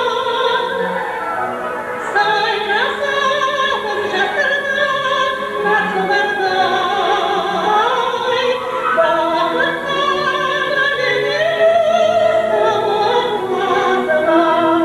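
A soprano singing in operatic style with vibrato, holding and gliding between long high notes over an orchestral accompaniment.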